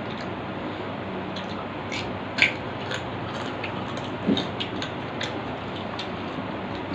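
Two people eating by hand from steel plates: a scatter of short clicks and smacks from chewing and from fingers on the plates, the loudest about two and a half seconds in, over a steady hiss.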